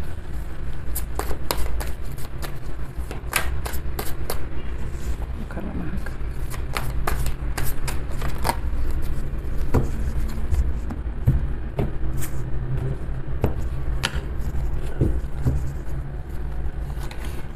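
A tarot deck being shuffled by hand: a long irregular run of short card clicks and slaps. A steady low rumble runs underneath.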